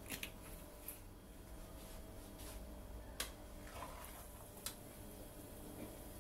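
Faint kitchen handling sounds: a few sharp clicks and light scrapes of a wooden spatula against a ceramic plate and a nonstick frying pan, with a soft rustle about four seconds in as chopped onion is pushed off the plate into the pan.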